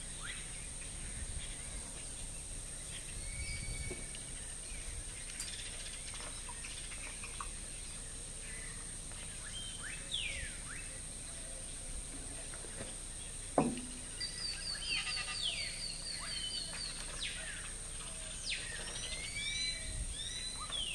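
Wild birds chirping and calling with short down-sweeping notes, and a quick trill of repeated notes about two-thirds of the way through, over a steady high thin tone. A single sharp knock comes just before the trill.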